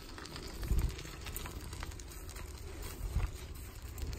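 Bicycle rolling along a leaf-covered dirt trail: a steady low rumble from the tyres and the bike jolting over bumps, with a couple of heavier thumps and scattered light ticks and crackles.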